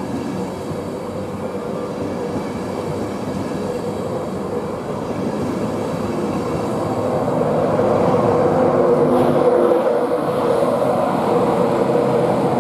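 InterCity 225 train departing: Mark 4 coaches rolling past on the rails, pushed by a Class 91 electric locomotive at the rear. The sound grows louder in the second half as the locomotive draws near, with a steady hum coming up under the rolling noise.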